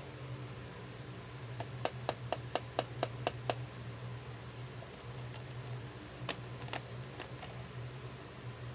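Hard plastic toy handbag clicking and tapping as it is handled: a quick run of about eight light clicks, roughly four a second, then a few scattered clicks later on, over a steady low hum.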